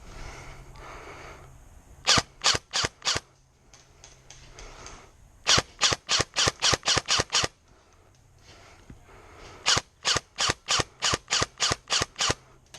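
Airsoft gun firing three strings of rapid single shots, about four a second: a short string of four, then two longer strings of about nine or ten.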